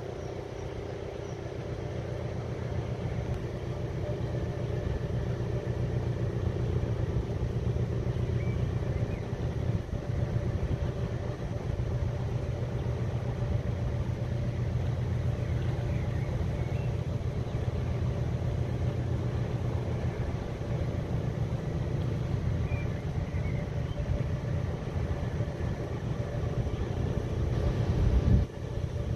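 Steady low mechanical rumble with a constant low hum.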